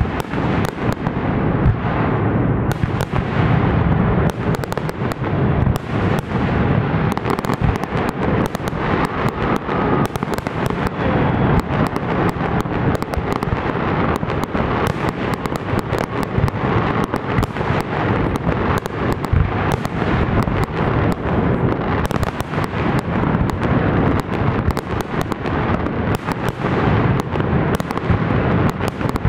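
Fireworks display: aerial shells bursting in a dense barrage, many sharp bangs a second overlapping without a break.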